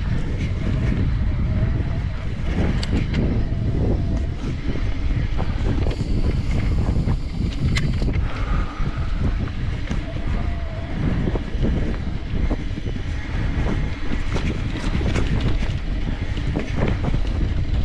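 Mountain bike riding over dirt singletrack: wind buffeting the camera microphone over the rolling tyre noise, with frequent clicks and rattles from the bike on rough ground.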